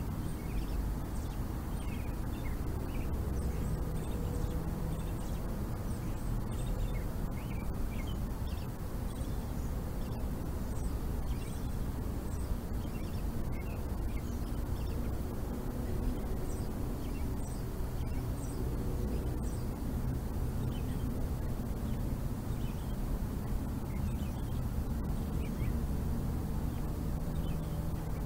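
Outdoor ambience: a steady low rumble with scattered short bird chirps and calls throughout.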